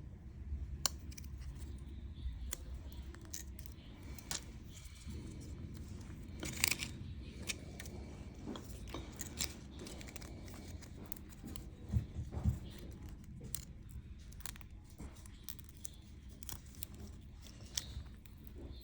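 Small clicks, taps and rustles of hands and tools handling an opened smartphone and battery adhesive strips, over a low steady room hum. A few sharper ticks and knocks stand out, with a couple near the middle.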